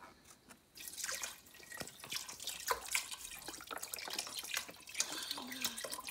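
Liquid being poured from a carton into a pot of thick roux, splashing steadily. It starts about a second in.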